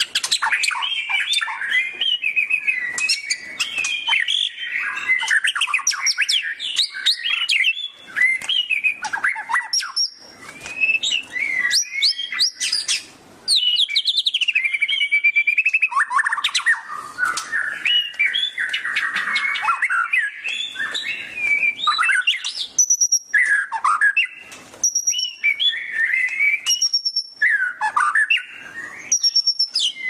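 White-rumped shama (murai batu) in full song: a long, varied run of rich whistles, rapid trills and quick sweeping notes with only brief pauses. Near the end a thin high note repeats several times between phrases.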